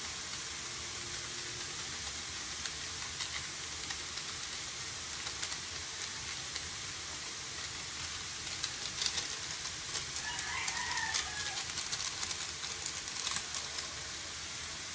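Sliced bitter gourd sizzling steadily in a wok, with the utensil clicking and scraping against the pan as seasoning is stirred in, the clicks bunched in the second half. A rooster crows once briefly about ten seconds in.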